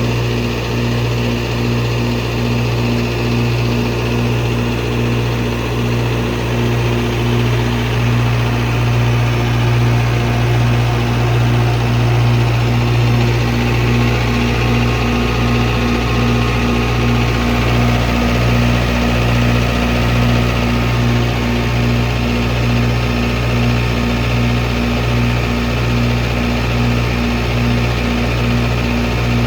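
Kohler 50 kW diesel generator's John Deere engine running steadily, a loud even hum with a slow beat about twice a second.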